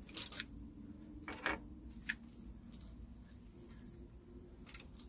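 Wires and plastic connectors being handled inside an electric dirt bike's battery compartment: a few light, scattered clicks and rattles, the loudest about a second and a half in, over a faint steady hum.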